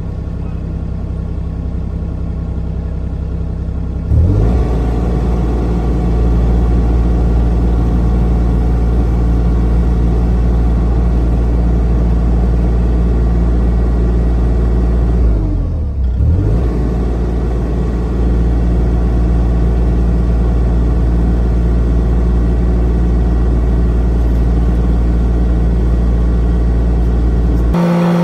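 Excavator's diesel engine running, revved up to high throttle about four seconds in and held there, with a brief dip in pitch and recovery near the middle, while the machine works its hydraulics to help seat a slipped rubber track. The engine throttles down at the very end.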